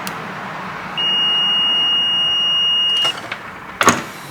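Multimeter continuity beep, one steady high tone held for about two seconds, as the probes bridge a MOSFET on the laptop board that the technician finds faulty (shorted). A sharp clack follows near the end.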